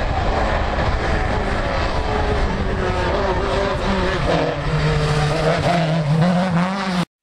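Rally car engine running hard at high revs as it drives through the stage. About four seconds in, a strong, steady engine note takes over and climbs slightly. The sound cuts off suddenly near the end.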